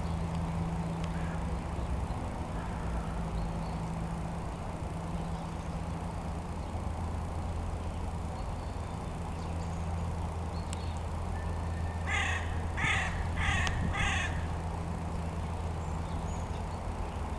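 A crow cawing four times in quick succession, about twelve seconds in, over a steady low background hum.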